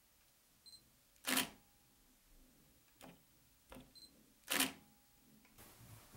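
Nikon DSLR worked twice through a homemade wooden foot switch: each time a small click and a short high focus-confirmation beep, then about half a second later the loud clack of the shutter firing.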